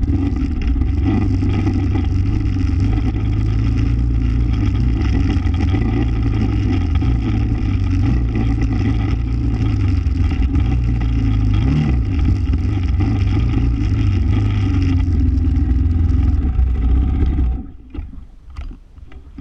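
Four-wheeler (ATV) engine running at a steady speed while riding, with the rushing and rattling of the vehicle under way on a dirt trail. Near the end the engine sound cuts off suddenly, leaving a few scattered knocks and clicks.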